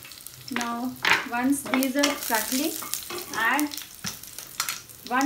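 Cumin seeds, chillies and curry leaves frying in oil in a nonstick pan, stirred with a spatula, with small clicks. Over the frying comes a run of short squeaky tones that bend in pitch, about two a second.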